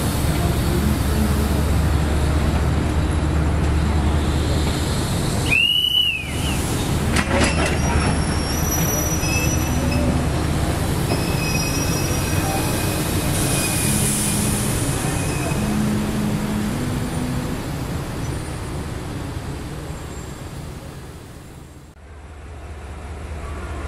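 D19E diesel-electric locomotive's engine running with a steady low rumble, with a few faint high squeals about halfway through. The sound fades away near the end.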